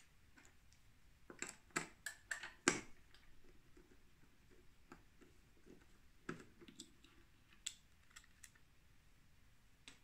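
Small sharp clicks and taps of a precision screwdriver and hard plastic parts being handled as a rotary telephone dial's finger wheel is unscrewed and lifted off. A quick run of about six clicks comes about a second in, then scattered single clicks.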